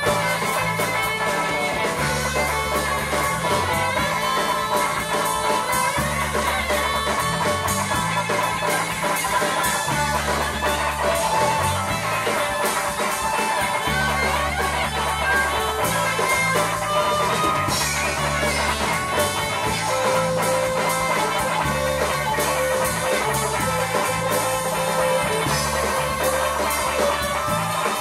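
Live band playing a slow, psychedelic rock piece, with electric guitar over a bass line that repeats in steps of about two seconds.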